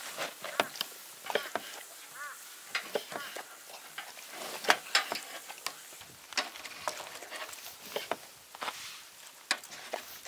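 A dog licking and chewing raw yellowtail off a wooden cutting board: a quick, irregular run of wet smacks and clicks, with a knife slicing fish on a second wooden board.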